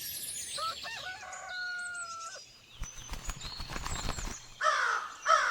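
Cartoon bird sound effects. A quick run of high chirps is followed by a held rooster crow of about two seconds, then a stretch of rustling, fluttering noise, and finally two loud falling calls near the end.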